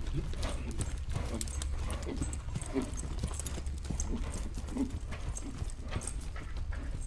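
Horse trotting: hooves striking the ground in a steady clip-clop rhythm, about three strikes a second, over a steady low rumble.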